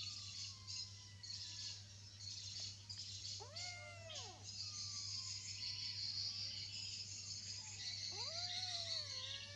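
Kitten meowing: two long meows about four seconds apart, each rising and then falling in pitch.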